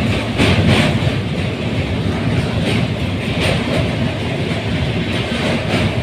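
Train running over a steel truss bridge, heard from a carriage window: a steady low rumble of wheels on the rails with a rushing noise and irregular metallic clatter every half second or so.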